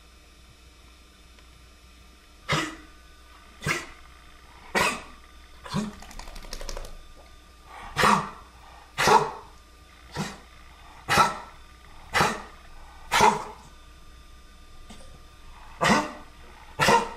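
Dog coughing in a string of about a dozen short coughs, roughly one a second, with two brief pauses.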